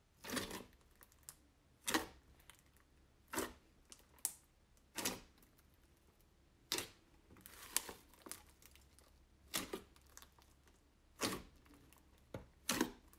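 Fingers poking and pressing into fluffy slime, each press giving a short sharp pop as air is pushed out; about ten of them, spaced a second or two apart.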